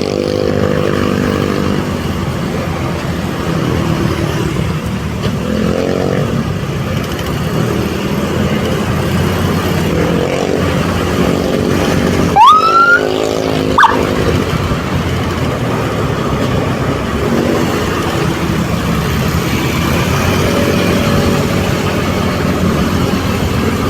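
Vehicle engine and road noise while driving along, with a short rising siren whoop about halfway through and a brief siren chirp a second later.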